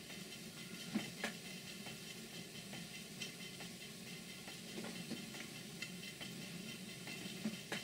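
Live-steam model plant (Stuart Twin Victoria engine and HB6 boiler) under steam, giving a faint steady hiss, with a few sharp ticks, two about a second in and two near the end.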